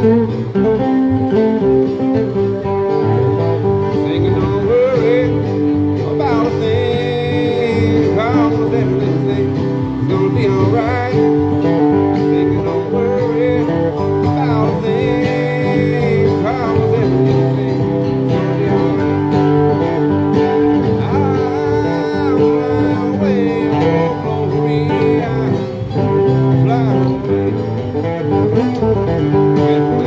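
Steel-string acoustic guitar being played, chords sounding in a steady rhythm.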